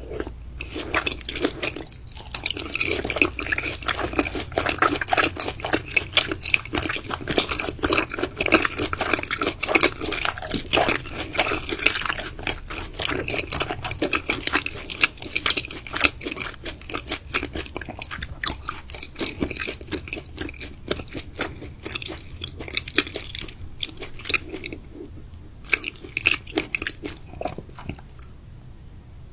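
Close-up chewing and biting of raw meat: a dense, continuous run of wet clicks and crunches. It thins out near the end, then ends with a last short burst of chewing.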